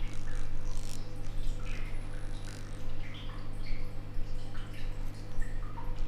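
Handheld vibration massage device held against the jaw muscles, its motor giving a steady low hum, with short high blips of varying pitch scattered over it.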